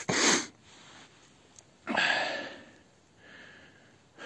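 A man's breathing close to the microphone: two loud breaths, the second about two seconds after the first.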